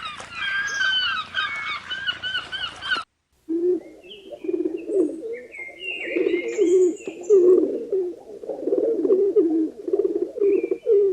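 Geese honking, cut off suddenly about three seconds in; after a brief silence, a run of low, quickly repeated cooing bird calls with scattered higher chirps of small birds over them.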